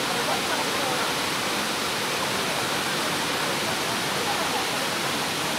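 Waterfall pouring into a swimming pool below it: a steady rush of falling water.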